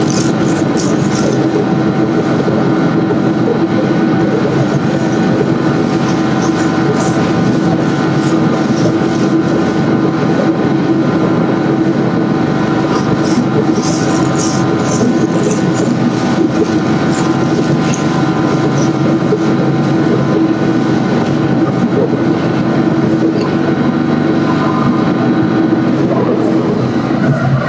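A machine running steadily, with a constant hum and a rattling, noisy undertone that hold unchanged throughout.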